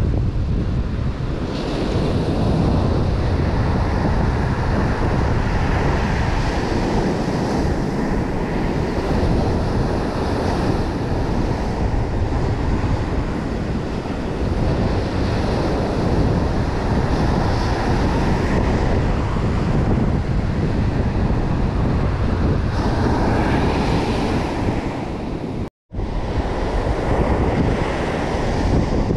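Surf breaking and washing up a sandy beach, a steady rushing wash with wind buffeting the microphone. The sound cuts out for a moment near the end.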